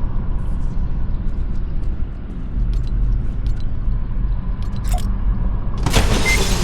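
Steady low machine hum with a few light clicks, then a sudden loud noisy burst about six seconds in.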